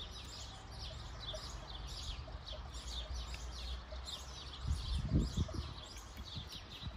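Small birds chirping continuously: many short, quick, falling chirps, several a second, over a low steady hum. A few soft low thumps come about five seconds in.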